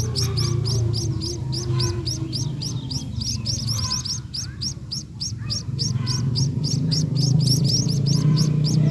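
Munias chirping in a fast, even run of short high chirps, about five or six a second, over a low hum.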